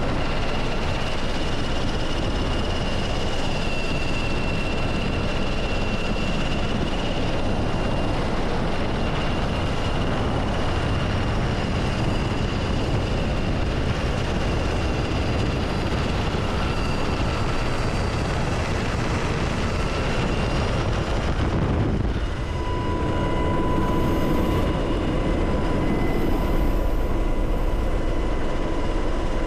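UH-60 Black Hawk helicopter in flight, heard from inside the cabin: a loud, steady engine and rotor noise with a steady high whine above it. About two-thirds of the way through, the sound changes abruptly and a steady mid-pitched whine comes in.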